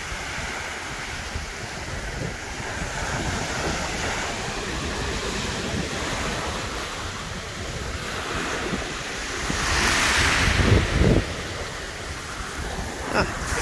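Small waves breaking and washing up over a pebble beach, with wind buffeting the microphone; the surf swells louder about ten seconds in.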